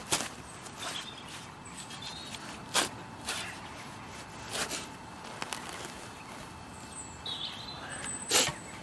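Narrow digging spade being pushed into lawn turf in a series of separate stabs, cutting out a plug of turf over a metal-detector target; the loudest stab comes near the end.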